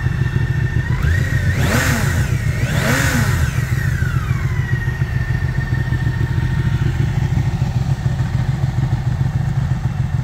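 BMW K 1600 GT's inline six-cylinder engine idling, blipped twice in quick succession about two and three seconds in, each rev rising and falling back, then settling to a steady idle.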